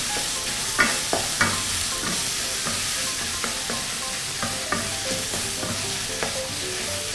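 Ground pork stir-frying in a pan with chili oil: a steady sizzle with frequent short scrapes as it is stirred.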